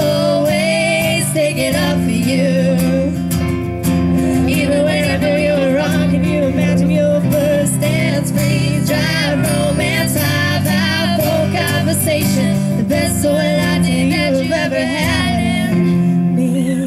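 A song with guitar and keyboard, and a voice singing over them.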